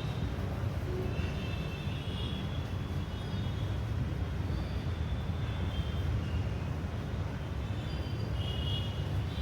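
Steady low rumble of background noise, with faint short high-pitched tones now and then.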